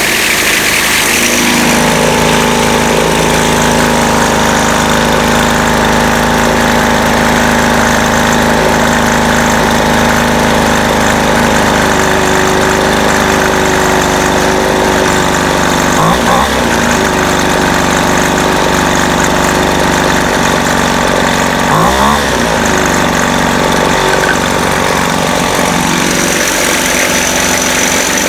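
Featherlite two-stroke string trimmer engine running steadily at a fast idle, its pitch briefly dipping and recovering twice partway through.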